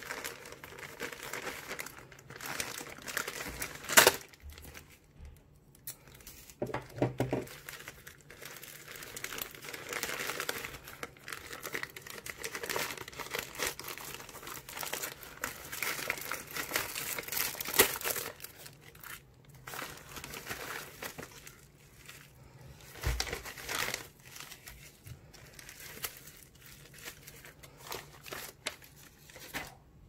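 Plastic postal mailer bag crinkling and tearing as hands pull it open and draw out plastic- and bubble-wrapped packets, in irregular handling noise. A sharp click comes about four seconds in and a soft thump later on.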